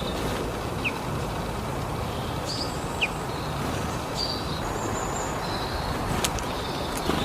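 Small birds chirping in short, scattered high notes over a steady low background noise, with a couple of sharp clicks near the end.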